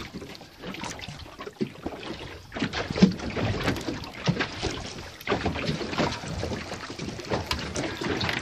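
Irregular knocks and rustles of a fish being unhooked and laid on a plastic cooler lid aboard a small boat, over steady wind and water noise. A sharp knock about three seconds in is the loudest.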